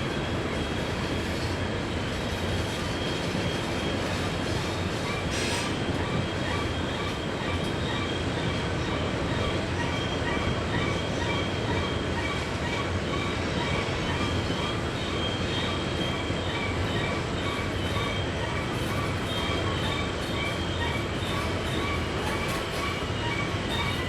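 Freight cars of a long coal train rolling around a sharp curve: a steady rumble of wheels on rail, with high-pitched wheel squeal coming and going throughout.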